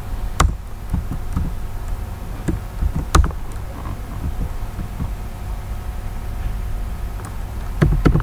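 Computer keyboard keystrokes: scattered sharp clicks, a few louder ones and a quicker cluster near the end, over a steady low hum.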